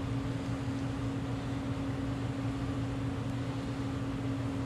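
Steady machine hum with a constant low tone, unchanging throughout. The hand-packing of grease into the bearing makes no distinct sound above it.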